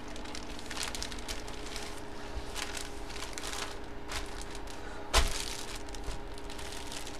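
Clear plastic bag around a jersey crinkling as it is handled, in scattered short crackles. About five seconds in there is one sharp knock, the loudest sound.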